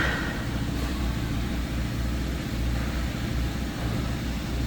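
Steady low mechanical hum with no distinct knocks or changes.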